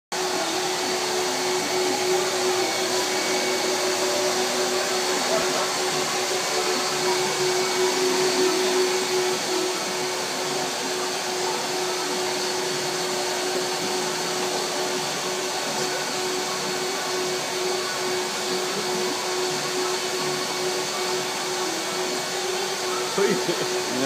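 Tub vacuum cleaner running steadily, a constant whine over the rush of air, as its hose nozzle is worked around a car's rear footwell.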